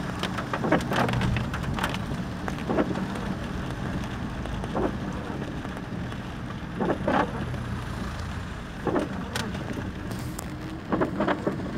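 Inside a car's cabin on a wet road: the engine runs with a steady low hum over the hiss of tyres and rain, with a few short knocks scattered through.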